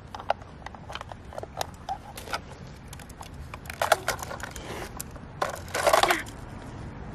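Clicks, knocks and scrapes of a toy garbage truck being handled and pushed through dirt and scraps of paper and plastic trash. The loudest knock is about four seconds in, and a longer crunching scrape comes around six seconds.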